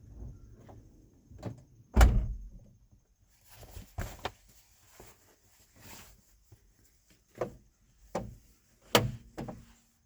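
A series of clunks and knocks from things being handled inside a van. The loudest thump comes about two seconds in, another near the end, with scuffing and rustling in between.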